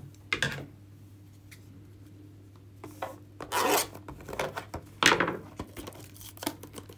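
Plastic shrink-wrap being cut and torn off a sealed trading card box, in short rustling, tearing bursts with small handling knocks. The loudest rips come about three and a half and five seconds in.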